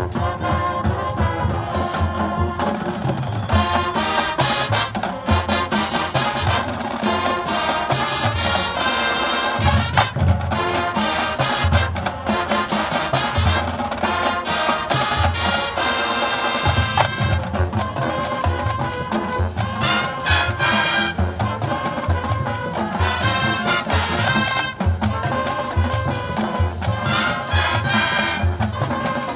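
High school marching band playing a brassy tune, trumpets and trombones over a steady drum beat.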